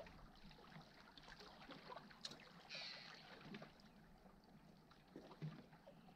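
Near silence: faint water lapping against shoreline boulders, with a few soft knocks.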